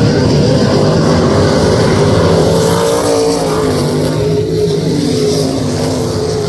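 Open-wheel dirt-track race car engines running hard on the oval, passing close by, their pitch rising and falling as they go through the corners.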